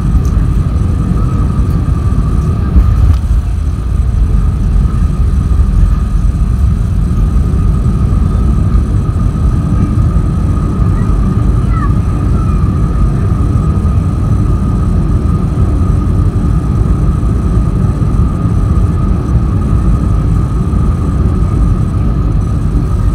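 Airliner cabin noise during the landing roll, heard from a window seat over the wing: a loud, steady rumble of wheels and engines with a thin steady whine, and a thump about three seconds in. The wing spoilers are raised, so the plane is slowing on the runway after touchdown.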